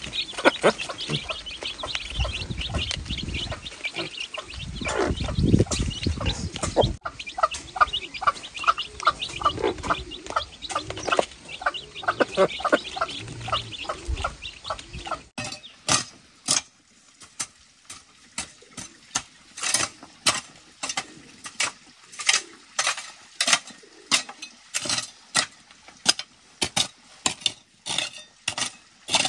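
Baby chicks peeping in quick chirps, with a hen clucking low. About halfway through, this gives way to a hoe striking and scraping through dry, lumpy soil in a steady rhythm, about one and a half strokes a second.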